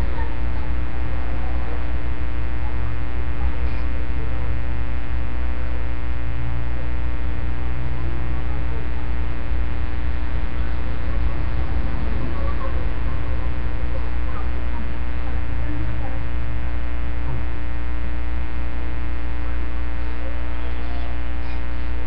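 Loud, steady electrical mains hum with many evenly spaced overtones, with faint wavering sounds beneath it.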